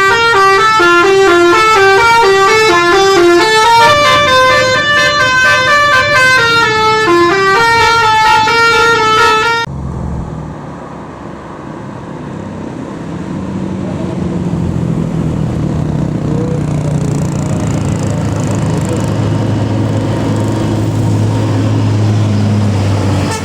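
Bus telolet horn kit playing a quick stepping melody on several horn notes at once, loud, for about ten seconds before cutting off abruptly. Then a large vehicle's engine runs and grows steadily louder as it approaches.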